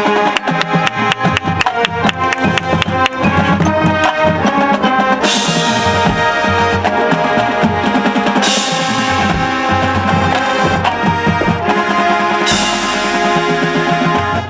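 High school marching band playing: the drumline plays rapid strokes under held wind chords, with loud crashes about 5, 8.5 and 12.5 seconds in.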